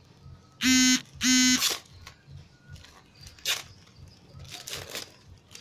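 Two short, loud buzzes of steady pitch, about half a second apart, a little under a second in. After them, clear plastic banknote sleeves crinkle as they are handled.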